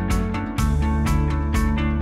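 Background music: an instrumental track with a steady beat, about two beats a second, and a bass note that changes about half a second in.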